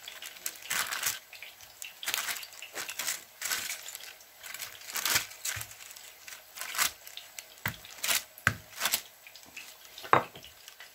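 Baking paper crinkling and rustling in short, irregular rustles as a plate is pressed down on it to flatten a raw chicken mince kebab patty, with a few sharper clicks in the last few seconds.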